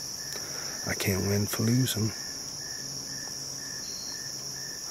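A steady, high-pitched drone of insects calling in the woods, with a second, lower insect call pulsing a few times a second. A man's low voice speaks briefly about a second in.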